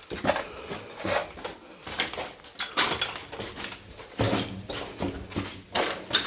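A string of footsteps on a hard tunnel floor, about one or two steps a second.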